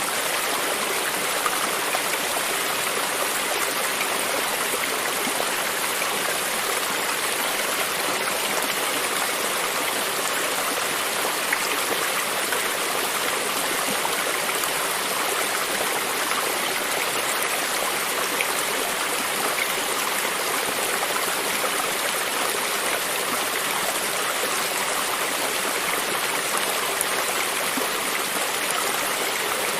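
A stream of running water flowing steadily, a continuous even rush with small splashes and gurgles.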